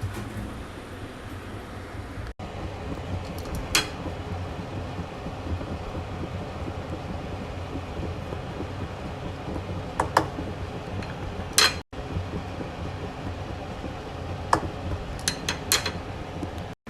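A steady background hum with occasional sharp clinks and clicks of kitchen utensils, some single and some in quick runs of two or three. The sound cuts out briefly three times.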